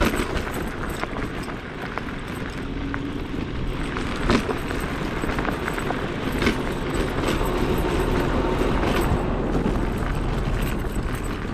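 Zero 10X electric scooter towing a trailer on a rough gravel road: steady tyre and wind noise with rattles and a few sharp knocks as it jolts over potholes, the clearest knocks a little past a third of the way in and just past halfway.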